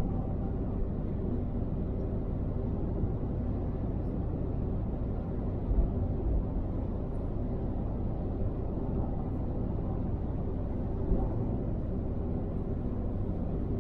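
Steady low road and engine rumble of a car cruising on a motorway, heard from inside the car, with a couple of brief low bumps, one near the middle and one later.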